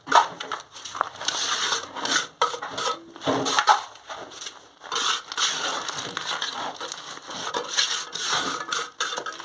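Repeated gritty scraping and crunching strokes of hand masonry work on cement and rubble during a squat-toilet pan installation.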